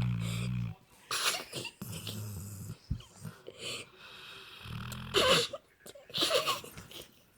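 Sleeping Labrador puppy snoring: three low rumbling snores, with hissing, wheezy breaths between them.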